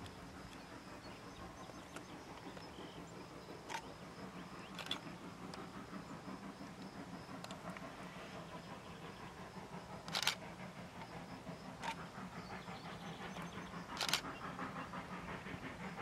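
A steady low engine hum, with a few sharp clicks or knocks scattered through it.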